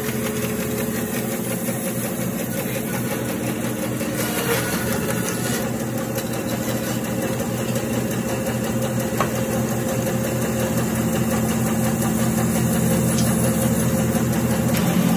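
Grizzly G0513X2BF 17-inch bandsaw running steadily with a Timberwolf 1-inch resaw blade, slicing lengthwise through a log of green maple. The sound is a continuous motor hum under the hiss of the blade in the wood.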